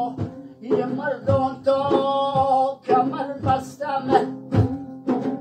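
Male voice singing a Pamiri maddoh, a devotional song, with a plucked string instrument accompanying and a regular beat about twice a second.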